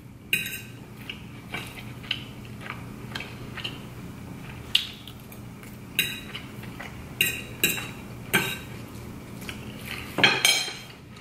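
Metal fork scraping and clinking against a ceramic plate of rice and vegetables, in short sharp clinks at irregular spacing, about one every second or two.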